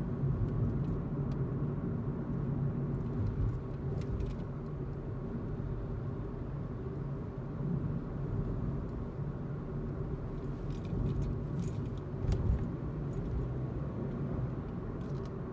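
Steady road and engine rumble inside the cabin of a 10th-generation Honda Civic on the move, with faint, short rattling ticks now and then, a few clustered near the middle and end. The ticks are the kind of intermittent driver-side noise the owner says the car has made since it was a month old.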